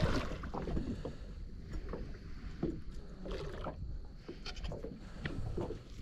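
Scattered light knocks and rustles in a small aluminium boat, coming irregularly about once a second, over a low steady rumble.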